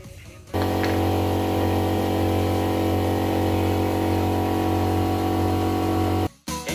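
Air compressor for a spray gun running steadily: a loud low hum with a hiss over it. It starts abruptly about half a second in and cuts off shortly before the end.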